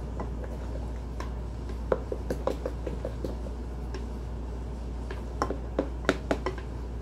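A wire whisk clicking and scraping against a glass mixing bowl as cake batter is beaten by hand, in irregular taps that come in quick clusters.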